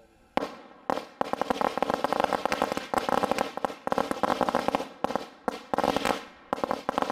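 A string of firecrackers going off: rapid sharp cracks that begin about a third of a second in and come in several dense runs separated by brief breaks.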